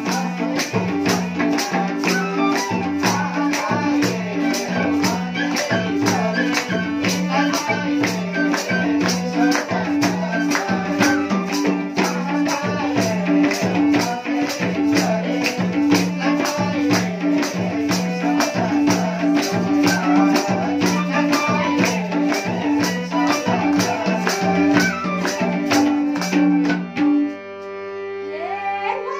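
Live Nepali dohori folk music: harmonium, madal drum and a jingling tambourine keep a steady beat under bansuri flute and singing. About two seconds before the end the percussion stops, leaving held harmonium notes and a wavering melody line.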